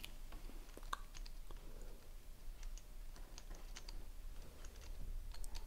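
Faint, scattered small clicks and ticks as a soldering iron melts solder into the braided shield of a shielded audio cable, over a low steady hum.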